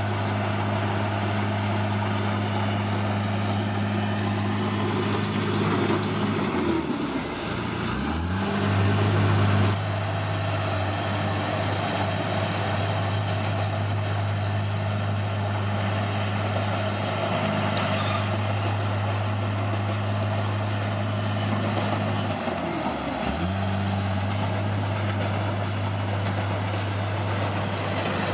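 Caterpillar D6R bulldozer's diesel engine running steadily under work. Its engine speed drops sharply and picks back up twice, about seven seconds in and again near twenty-three seconds, with a louder stretch just after the first dip.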